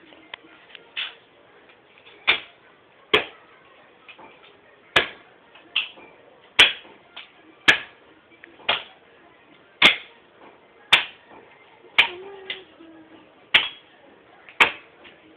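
Axe blows chopping wood by hand: a sharp strike about once a second, about a dozen in all, some louder than others.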